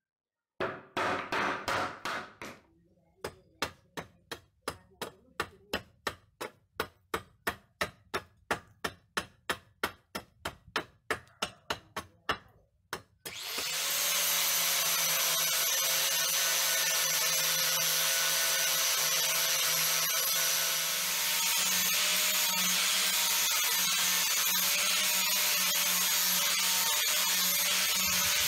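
A hand saw cutting into a wooden block in regular back-and-forth strokes, about two to three a second. About halfway through, an angle grinder fitted with a sanding disc starts up and runs steadily, grinding down and shaping a wooden axe handle.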